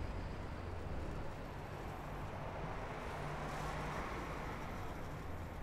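Road traffic heard from a moving bicycle: a steady low rumble, with a noisy swell that rises and fades about three to four seconds in.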